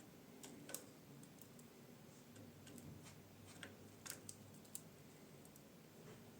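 Faint, scattered ticks and clicks, about ten at irregular intervals, from zebra finches moving about their cage: feet on perches and wire, beaks pecking. A low steady room hum lies underneath, and there are no calls.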